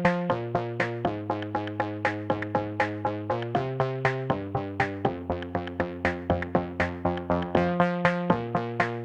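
Electronic background music: synthesizer chords changing every second or so over a steady, quick drum-machine beat.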